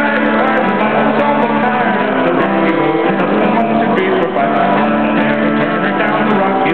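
Acoustic guitar played live, strumming chords continuously.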